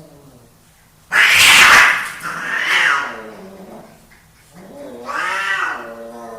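Two male domestic cats fighting: a sudden loud burst of hissing about a second in, then two drawn-out yowls (caterwauling), the second one long and falling in pitch at its end.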